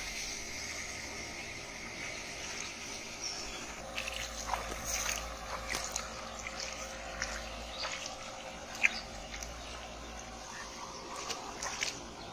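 Small splashes of shallow muddy water as a hand reaches in and feels about, scattered through the second half, over a steady high hiss.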